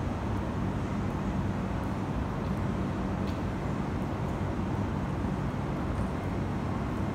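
Steady low outdoor rumble like distant traffic, with a few faint ticks.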